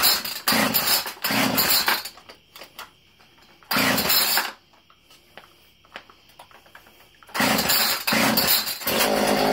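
Homelite two-stroke chainsaw being pull-started again and again, each pull a short burst of the engine, with quiet gaps between tries; near the end it catches and keeps running steadily. The saw stalls once the choke is in, which the owner takes to mean its carburetor needs adjusting.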